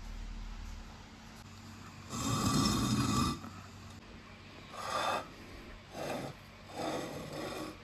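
Marbles rolling and rumbling through plastic pipe and rain-gutter tracks, in four separate runs: a louder one lasting about a second, then three shorter ones.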